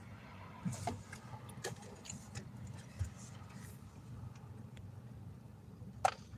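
Small clicks and taps of a handheld phone being moved and touched, with one sharp click near the end, over a low steady hum inside a car.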